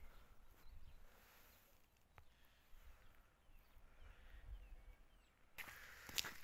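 Near silence with a few faint bird chirps, then, about a second before the end, footsteps crunching on a gravel road.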